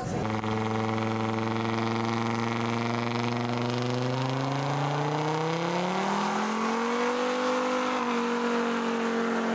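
Small pickup truck's engine held at high revs during a burnout, a steady drone that climbs in pitch about halfway through and then holds at the higher pitch.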